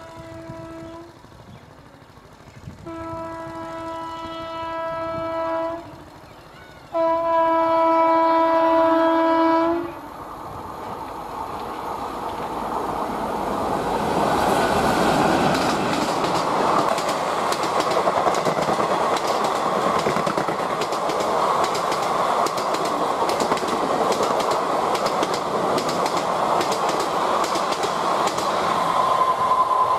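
WAP-4 electric locomotive sounding its two-tone horn in three blasts, the last the loudest. Then the Kumbha Express passes at speed, its coaches making a loud rattling clatter over the track that grows and holds steady, and the horn starts again right at the end.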